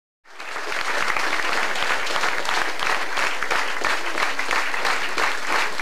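Audience applauding, a dense steady clapping that rises from silence just after the start.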